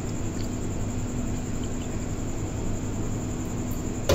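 A steady low hum with a faint constant tone, with a single short knock at the very end.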